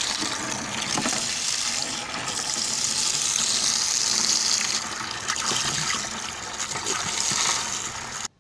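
Water from a garden hose pouring into a plastic bucket, a steady splashing fill that cuts off suddenly near the end.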